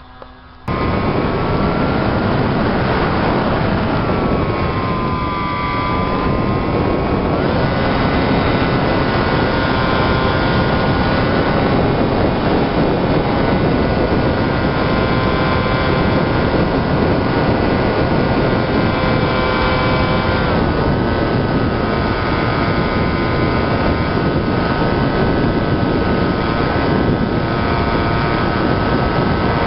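Propeller motor of a home-made pusher RC plane, heard from its onboard camera: a steady whine under a loud rush of air over the microphone. It starts abruptly under a second in, its pitch dips and recovers about five seconds in, and it rises a little around twenty seconds in.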